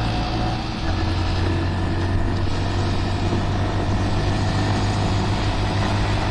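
A Honda Monkey's small single-cylinder engine running steadily under way, with a steady rush of wind noise over it.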